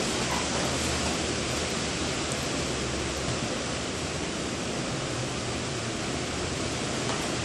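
Steady rushing hiss that does not change, with no distinct knocks or thuds.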